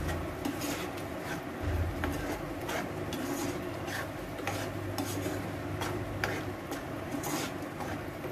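Metal spoon stirring and scraping thick curry masala paste around a non-stick pan, in repeated irregular strokes about one or two a second.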